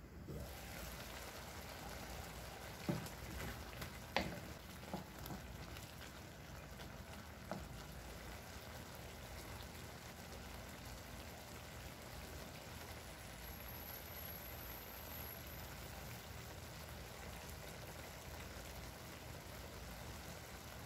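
Shrimp and tomato sauce simmering in a skillet: a steady bubbling sizzle, with a few sharp clicks between about three and eight seconds in, the loudest around four seconds.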